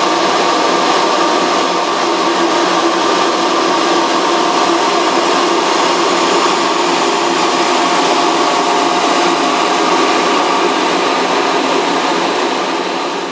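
Blown-film plastic extrusion line running: a loud, steady machine whir with several held hum tones. It fades out near the end.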